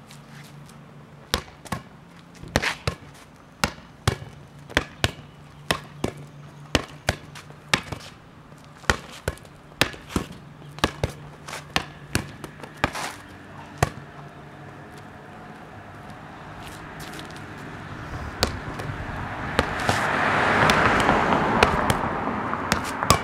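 A rubber playground ball bouncing on a concrete driveway and being slapped back by hand, in a quick, irregular rally of paired smacks, about one to two a second. Partway through the bounces thin out, and a rushing noise swells and then fades near the end.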